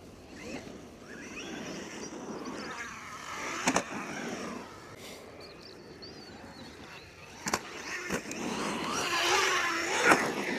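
An MJX Hyper Go 10208 V2 RC truck's electric motor whining, rising and falling in pitch as it is driven hard on dirt. Sharp knocks of landings or hits cut in about four seconds in, twice around seven to eight seconds, and loudest near the end.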